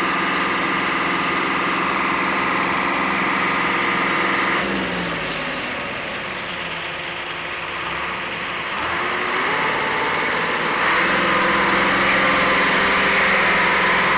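Heavy dump truck's diesel engine running: its revs drop about four and a half seconds in, stay low for a few seconds, then climb again and hold higher and louder near the end.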